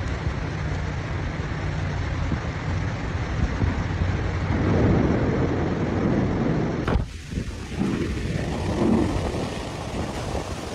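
Storm noise of strong wind and heavy rain, with wind gusting on the microphone. The sound swells about halfway through and changes abruptly about seven seconds in.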